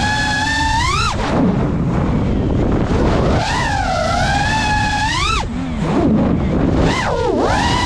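FPV quadcopter's brushless motors and propellers whining, the pitch climbing and dropping sharply as the throttle is punched and cut during dives and rolls, over a steady rush of air noise. The whine falls low just after a second in and again around six seconds, with a quick dip and rise near the end.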